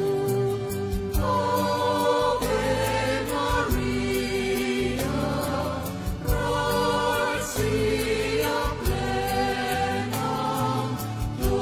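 Choir singing a slow hymn in long held notes over a sustained instrumental accompaniment.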